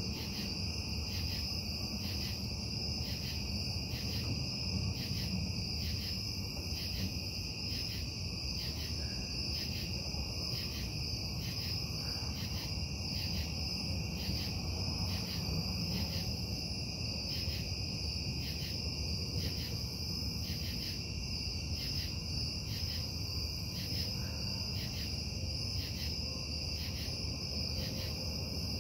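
Steady low industrial rumble from a neighbouring casting plant running through the night, with crickets chirping over it in an even, pulsing rhythm.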